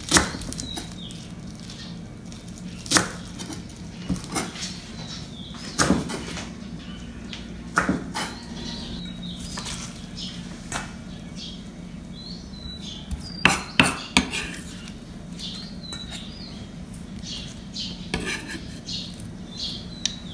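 Kitchen knife cutting garlic chives on a round wooden chopping block: sharp separate knocks of the blade on the wood, one every second or two at an uneven pace, over a low steady hum.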